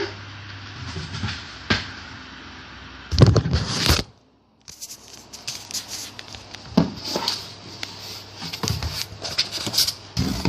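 Handling noises of a device being unboxed: scattered knocks and scrapes, with a louder cluster about three seconds in. The sound cuts out for about half a second just after four seconds, and a fuzzy hiss runs through what follows.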